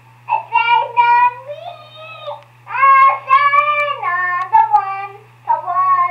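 A young girl singing in short phrases, heard through the speaker of a Fisher-Price 900 MHz baby monitor: the voice comes through thin and muffled, over a steady low hum.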